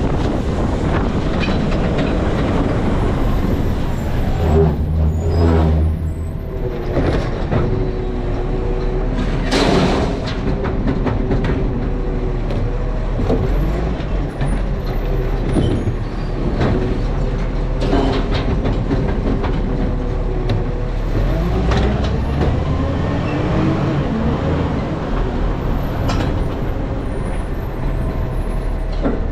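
Garbage truck running, its engine note rising and falling several times, with a short sharp hiss of air about ten seconds in.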